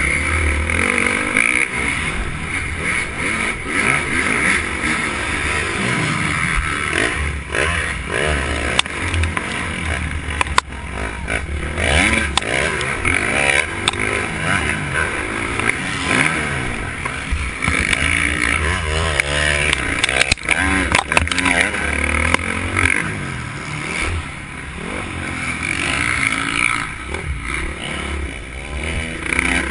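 Dirt bike engine heard from an onboard camera during a race. It revs up and down over and over as the throttle is worked through the jumps and turns, with a few sharp knocks along the way.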